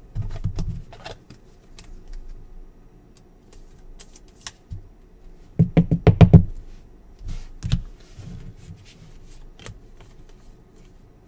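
A stack of basketball trading cards being handled and flipped through by hand: light clicks and slides of card stock, with a quick run of loud taps about six seconds in.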